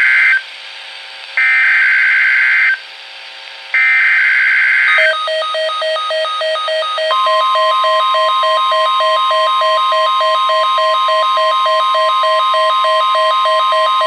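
NOAA Weather Radio alert coming through a weather alert radio: three harsh data-burst screeches, each about a second long with a short gap between, the digital SAME header that triggers the warning. Then rapid electronic beeping, about three beeps a second, joined about seven seconds in by the long steady 1050 Hz warning alarm tone.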